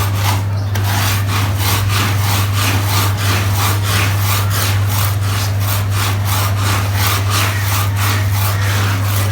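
Rhythmic scrubbing strokes on a wet, dirty carpet, about four a second, over a steady machine hum.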